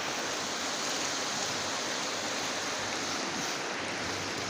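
Flowing river water: a steady, even rushing hiss.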